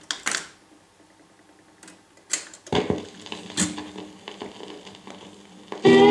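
Automatic 45 rpm record changer of a Philips AG4116 record player cycling: sharp mechanical clicks and clunks as the tonearm swings over and sets down on the record, then faint stylus crackle in the lead-in groove. Music starts from the player's speakers near the end.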